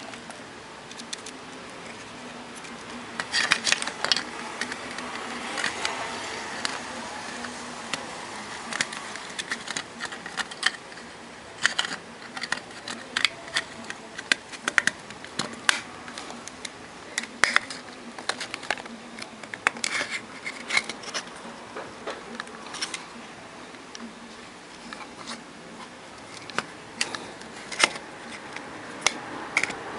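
Irregular clicks and taps of a WEG CFW500 frequency inverter's plastic housing and control circuit board being handled and pressed together as the board is fitted back into its case.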